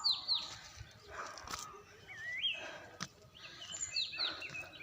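Forest birds calling: clear whistled notes, a pair sweeping downward at the start and again near the end, and a rising whistle about halfway through. Under them, crunching footsteps on a path as the walker climbs.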